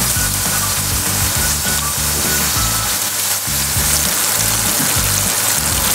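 Chicken frying in hot oil, a steady dense sizzle while it browns, heard together with background music that has a stepping bass line.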